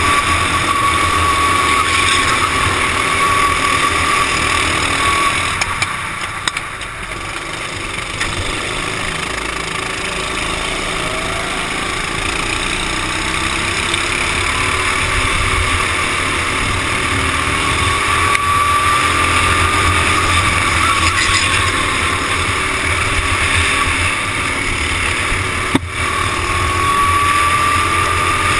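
Racing kart engines heard from on board, running hard with the pitch rising as the kart accelerates and falling back between straights. The engine sound drops briefly about six seconds in as the throttle eases off. A single sharp knock sounds near the end.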